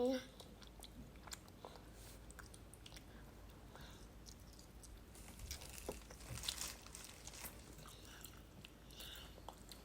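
Faint chewing and small mouth clicks of a toddler eating, with a few slightly louder clicks and rustles between about five and seven seconds in.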